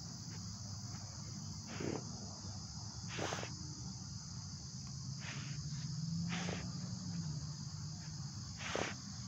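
A dog sniffing with its nose down in a freshly dug hole in the dirt: about five short sniffs, a second or two apart. Under them runs a steady high-pitched insect drone.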